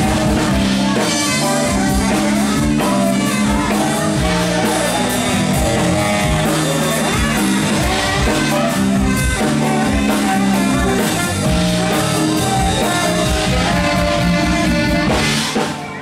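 Live funk band playing, a tenor saxophone out front over bass, drums and guitar with a steady groove. The music dips briefly near the end.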